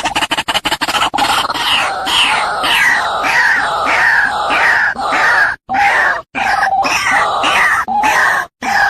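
White-breasted waterhen calling: a fast run of rapid croaking pulses for about the first second, then a quick series of harsh, falling calls several a second. A steadier lower note joins in the second half, broken by a few brief silences.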